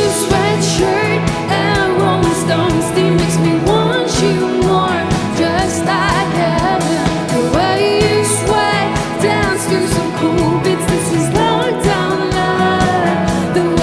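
Live band playing a pop song: a singing voice over a steady drum beat and sustained bass notes.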